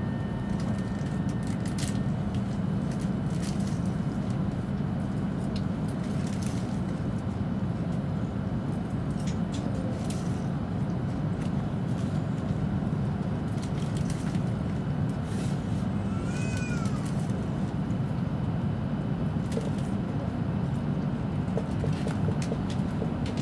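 Passenger-cabin ambience inside a W7 series Shinkansen: a steady low hum with scattered clicks and knocks, and one brief high squeak that rises and falls about sixteen seconds in.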